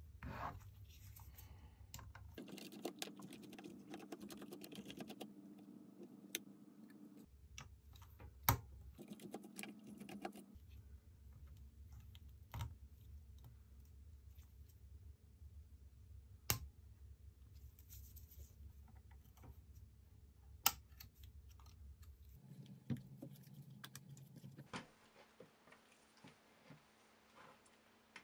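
Scattered light clicks and taps of a small screwdriver and plastic and metal parts of a Nikon D90 DSLR body being handled during disassembly, over a faint low hum that comes and goes.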